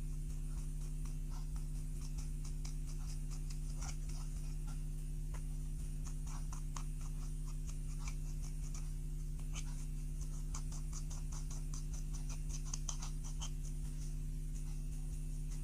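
Clear slime being squished and stretched by hand, giving many small irregular sticky clicks and crackles, over a steady low electrical hum.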